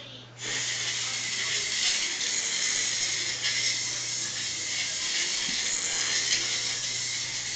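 Antweight combat robot's small 540 rpm gear motors whirring steadily as it drives; the whir starts abruptly about half a second in and holds without a break.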